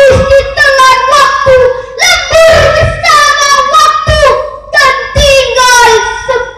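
A girl's voice declaiming a poem into a microphone in a drawn-out, sing-song delivery, the lines held and bent in pitch like singing.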